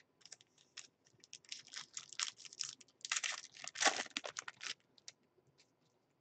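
Trading-card pack wrapper crinkling and tearing as a pack of hockey cards is opened by hand: a dense run of crackles that thins out to a few faint clicks near the end.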